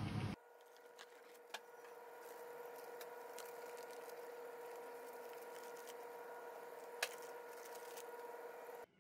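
Faint handling sounds of baking paper and a sponge cake being rolled up by hand: soft rustles and a few sharp ticks, the sharpest about seven seconds in. Under them runs a steady electrical hum at one pitch. A brief low rumble at the start cuts off abruptly.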